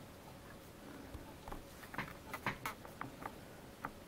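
A few faint, light taps and clicks as hands press a clear stamp down inside a MISTI stamping tool to stamp the image onto the paper. The clicks bunch together about halfway through, with one more near the end.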